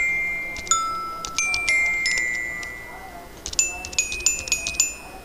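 Instrumental music of high, bell-like struck notes that ring and fade, a tinkling melody in short clusters of notes with a lull in the middle.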